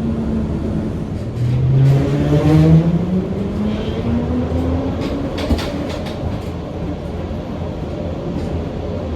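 Electric heritage tram running and gathering speed: its motor whine rises steadily in pitch over a low running hum. A few sharp clicks come about two-thirds of the way through, typical of wheels crossing rail joints or points.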